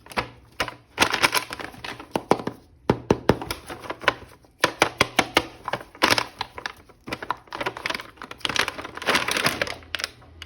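Plastic packaging crinkling while a plastic action figure is handled, with many sharp clicks and snaps in irregular bursts.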